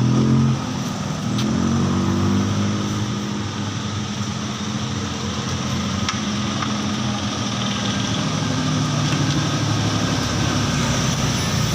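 A motor running steadily, its pitch wavering and gliding slightly up and down.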